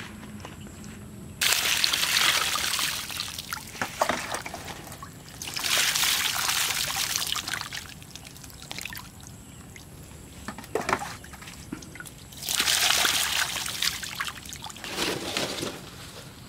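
Water poured from a plastic scoop over a plucked duck to rinse it, splashing and trickling off. It comes in several pours of a second or two each, the first starting suddenly a second and a half in.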